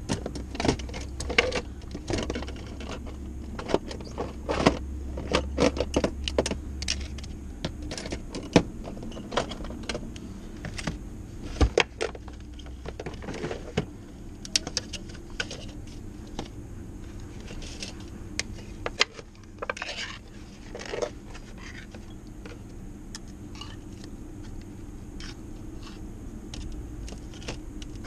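A utensil clinking and scraping against a small metal can of pâté cat food and a paper plate as the food is dished out. The clicks are frequent in the first half, then scattered.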